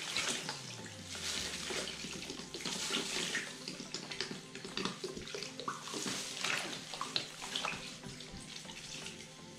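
Orange soda pouring from a plastic bottle and splashing into a basin of soda, with a gloved hand sloshing a soaked shirt in the liquid.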